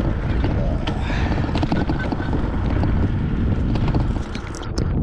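Wind buffeting the microphone of a camera on a moving bicycle, a steady low rumble, with scattered clicks and rattles from the bike riding over a rough paved path.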